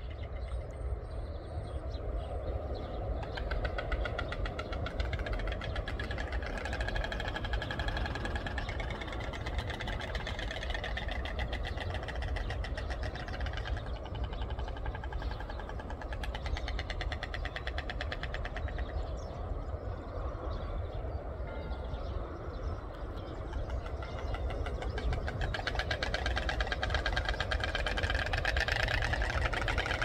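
White storks clattering their bills at their nests: a fast, dense rattle of clicks going on and off among the birds, louder over the last few seconds, over a steady low rumble.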